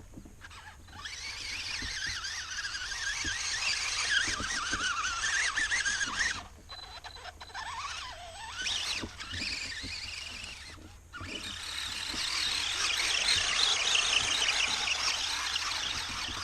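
Radio-controlled mud truck's electric motor and drivetrain whining high and wavering as the throttle is worked, with its pitch rising and falling. It cuts out briefly three times, near the start, about two-thirds of the way in and around eleven seconds.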